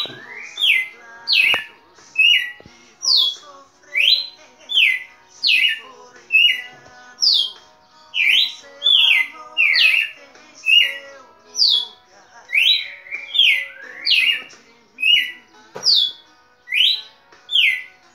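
Caged red-cowled cardinal (galo-de-campina) singing a long, steady run of loud, clear whistled notes, a bit more than one note a second.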